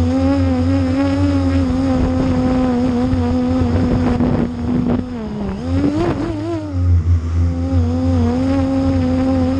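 Quadcopter with 1400KV brushless motors spinning 8-inch propellers on a 4S battery, heard from a camera mounted on its frame. A steady, loud motor-and-prop whine whose pitch wavers constantly, dips about five seconds in and climbs again around six seconds. It is flying on near-default Betaflight PIDs, which the pilot calls awful flying.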